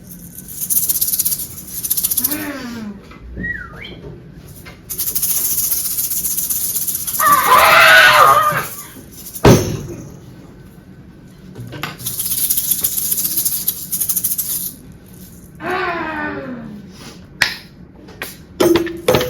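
Hand-made foley effects: a rattle or shaker is shaken in three long spells, and between them come short falling vocal glides, a loud swelling noise and a few sharp clicks.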